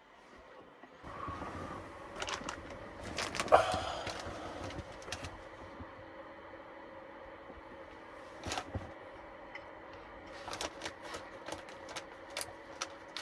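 Dog gnawing on a halved elk antler: irregular hard clicks and scrapes. A louder thump and rustling come about three and a half seconds in.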